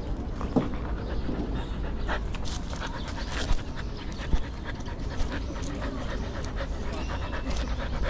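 Husky panting rapidly and steadily, close to the microphone of a GoPro hung on its collar, with a few sharp knocks about half a second, three and a half and four seconds in.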